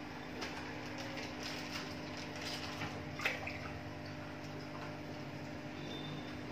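Water splashing in a fish tank as arowanas strike at live goldfish on the surface, with a sharp splash about three seconds in, over a steady low hum.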